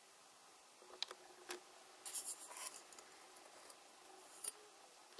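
Faint handling noise: a few light clicks and a brief scratchy rub about two seconds in, then another click near the end, over quiet room tone.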